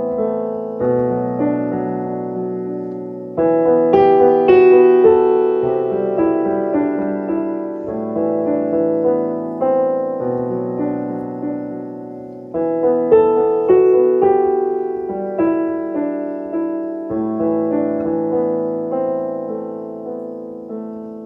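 Solo piano played slowly: chords and a melody struck and left to ring and fade, with new phrases opening on louder chords several times, and the last chord dying away near the end.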